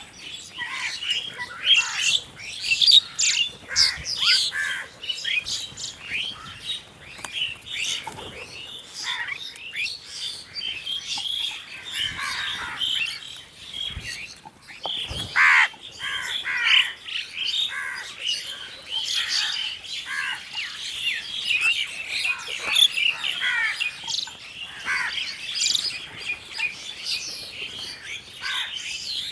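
A flock of crows calling at a feeding spot: many short, overlapping caws and chirps packed closely together with no pause.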